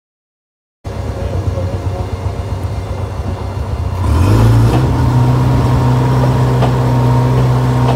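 Engines of a concrete mixer truck and a concrete pump running while concrete pours down the truck's chute into the pump hopper. The sound cuts in just under a second in, and about four seconds in the engine speeds up and holds a louder, higher steady pitch.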